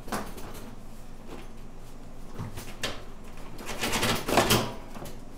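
Dirt-bike rear subframe and silencer being wrenched and wiggled free by hand: a few scraping, creaking rubs of metal against metal and rubber, the loudest and longest near the end. The powder-coated subframe is a tight fit.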